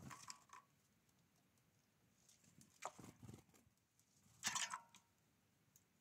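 A great tit's wings fluttering as it lands, then short taps and scrapes of its feet and bill on the rim of a bird bath, in three quiet clusters, the loudest about four and a half seconds in.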